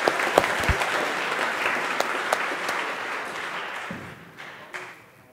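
Audience applauding, steady at first and then dying away over the last two seconds.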